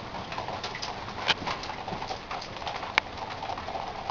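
Water dripping from building leaks, irregular drops tapping and splashing into buckets and puddles over a steady wash of running water, with two sharper, louder drops about a second in and about three seconds in.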